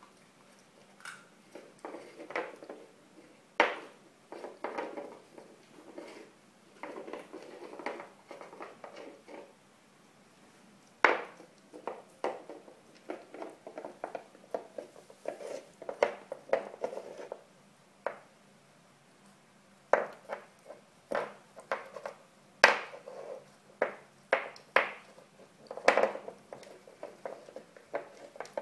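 Puppy gnawing on a dried hoof chew, with irregular hard clacks and scraping as the hoof knocks against the wooden floor and her teeth work at it.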